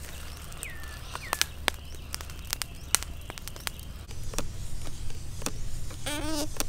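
Scattered sharp clicks and crackles from a chicken roasting on a bamboo spit over glowing charcoal as the spit is turned by hand, with two short falling bird chirps about a second in and a brief wavering call near the end.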